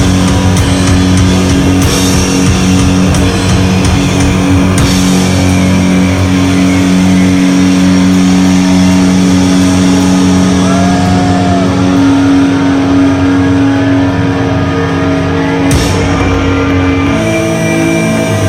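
Doom metal band playing live: distorted guitars and bass hold long, low droning chords, with a few sharp crashing hits. Near the end a new higher note comes in and is held.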